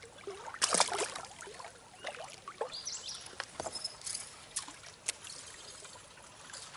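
A small bass tossed back by hand splashes into the creek about a second in, the loudest sound, followed by softer trickling and lapping water and a few light clicks.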